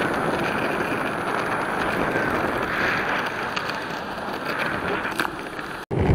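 Electric skateboard rolling fast on asphalt: a steady road-noise hiss from its 90 mm urethane wheels, cut off suddenly near the end.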